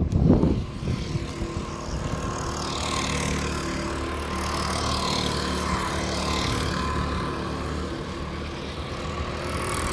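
Go-kart engine running at speed on the track, a steady engine note as the kart drives past. Wind rumbles on the microphone for about the first second.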